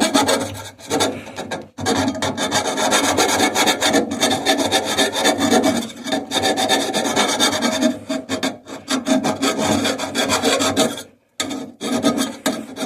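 Hand file rasping back and forth over the cut end of a drain pipe, taking off the rough edges. The strokes run steadily, with brief pauses about a second and a half in and near the end.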